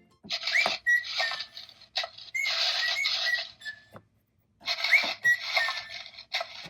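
Electronic sound effect from the Mega Bloks Three Little Pigs playset's toy speaker: a noisy, hissing sound with short whistle-like chirps, played twice with a brief silent gap between.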